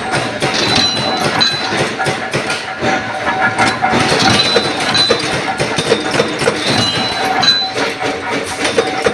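Power press stamping washers out of black steel plate: continuous machine running with dense mechanical clatter and metal clinking, a short high ringing tone recurring every second or two.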